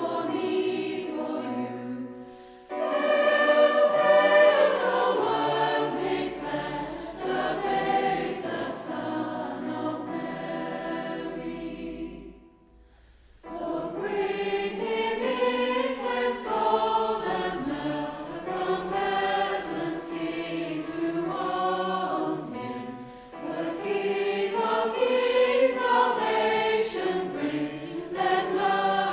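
Mixed-voice choir singing a Christmas carol in several parts, in long phrases with a brief breath of about a second near the middle.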